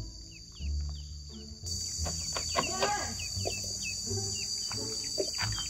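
High, steady drone of insects, growing louder a little under two seconds in, with short falling chirps scattered over it.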